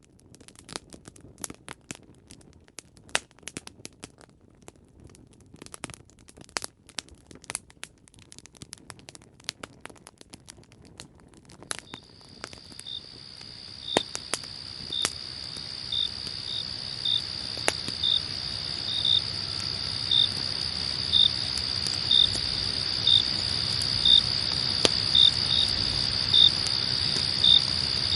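Campfire crackling and popping; about twelve seconds in, a cricket chorus fades in, a steady high trill with a louder chirp about once a second, growing louder while the crackles carry on.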